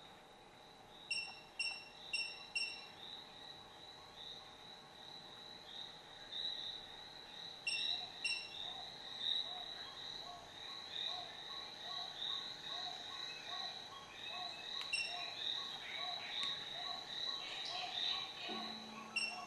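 Short, high-pitched electronic beeps acknowledging button presses on the LED controller's infrared remote: four in quick succession about a second in, two more a few seconds later. A steady, high-pitched warbling tone sets in about a third of the way through and runs under them.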